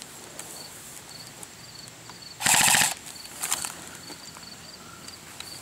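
Airsoft electric rifle firing one short full-auto burst of about half a second, about two and a half seconds in. A few fainter sharp cracks follow shortly after.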